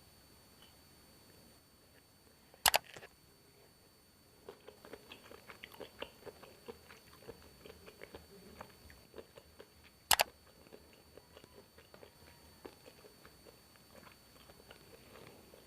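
Close-up mouth sounds of chewing spicy stir-fried baby squid with stink-bean sambal: a dense run of small crunches and wet clicks. Two sharp clicks stand out, about three seconds in and again about ten seconds in.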